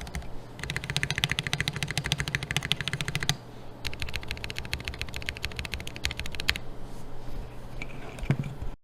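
Typing on the Finn Prototype #1 custom mechanical keyboard: fast keystrokes in two quick runs, split by a short pause about three seconds in, then thinning out before the sound cuts off suddenly near the end. A faint low hum runs underneath.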